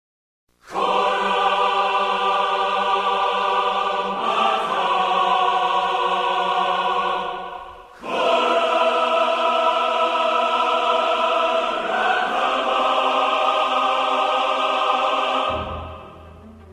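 Trailer music: sustained choir-like chords that shift about every four seconds, giving way near the end to a quieter low held note.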